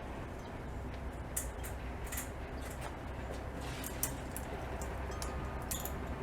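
Scattered light clicks and taps of small parts being handled while a car door panel is fitted, over a steady low hum.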